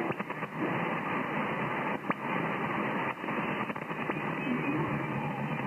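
Shortwave receiver hiss on an open HF single-sideband aviation channel (8867 kHz, upper sideband) between transmissions: steady static cut off above the narrow voice band, with a few brief crackles.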